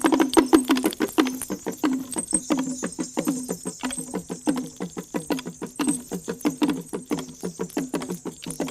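Traditional T'boli instrumental music: fast, even rapid strikes of a low-pitched instrument, several notes a second, moving between a couple of tones.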